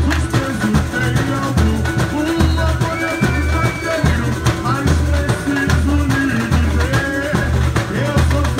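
Samba-enredo played by a samba school's bateria: deep surdo bass drums beating steadily about twice a second under lighter samba percussion, with a melody line over it.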